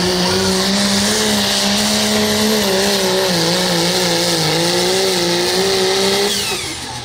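Super stock pulling tractor's engine running flat out under load during a pull, a loud steady drone whose pitch dips and wavers in the middle, then drops off near the end.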